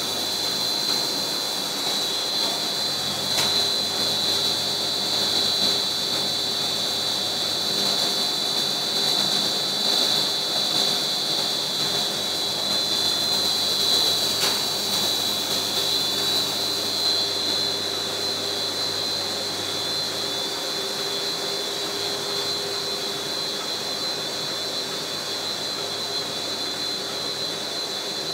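HDPE film extrusion machine running: a steady industrial drone with a constant high-pitched whine.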